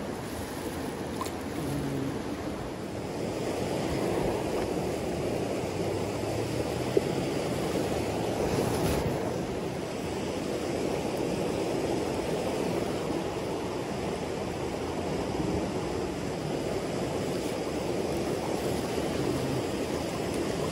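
Steady rush of a shallow mountain stream flowing over rocks, with one brief click about seven seconds in.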